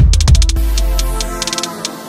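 Electronic background music with a deep bass, drum hits and rapid hi-hat ticks; the bass drops out about three quarters of the way through.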